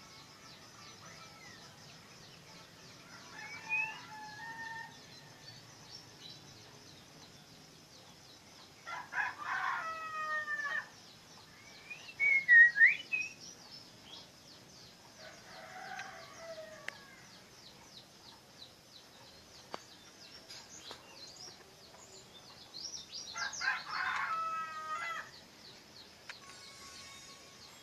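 Bird calls: two long calls of about two seconds each, one about nine seconds in and one near the end, with a few short chirps between them. A steady faint high hiss runs underneath.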